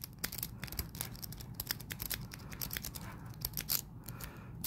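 Steel wave rake scraping in and out of a Brinks padlock's keyway, clicking rapidly and unevenly over the pin tumblers while the lock stays shut.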